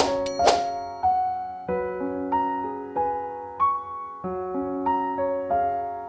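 Background music: a slow, gentle piano intro to a ballad, with notes and chords struck about once or twice a second, each ringing out and fading. Two sharp clicks come in the first half second.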